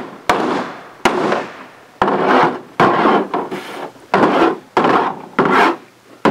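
Small hatchet chopping repeatedly into a hard, woody mushroom on a plastic folding table: about eight strokes, one every three-quarters of a second or so, each a sharp knock that trails off briefly.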